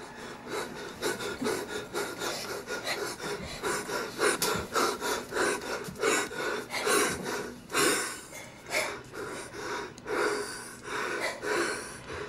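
A man and a woman breathing hard and grunting in a quick rhythm during sex, about two to three breaths a second, slowing slightly toward the end.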